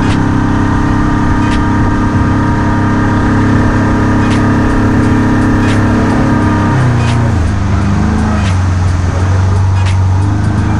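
An engine running steadily under load, its pitch stepping down about seven seconds in as it slows or changes gear.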